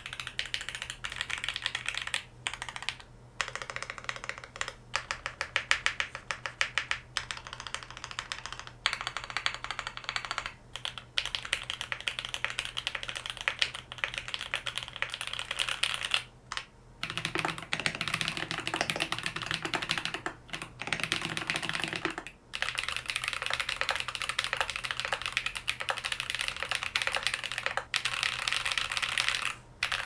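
Typing on an Angry Miao Cyberboard R3 mechanical keyboard with lubed Marshmallow linear switches and GMK Noel ABS keycaps: a dense stream of keystrokes broken by a few short pauses, picked up by an on-camera microphone. Partway through, the sound changes as a second Cyberboard, with lubed Holy Panda tactile switches and PBT keycaps, takes over.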